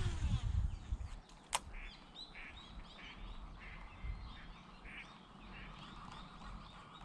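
A dense chorus of short, repeated animal calls, a few each second. A sharp click comes about a second and a half in, and there is low rumbling near the start.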